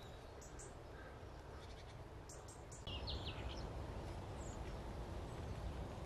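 Eurasian jay mimicking an owl's call, heard faintly amid woodland ambience. The wind noise gets louder about three seconds in, and a short run of high bird notes follows just after.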